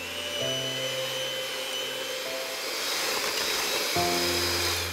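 Electric hand mixer running, its beaters whipping cream: a steady whirring with a high motor whine.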